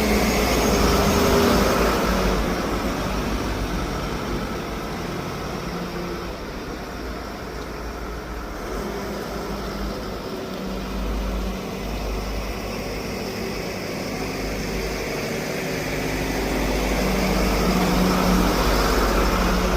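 Backhoe loader's diesel engine running, louder for the first few seconds and again near the end, quieter in between.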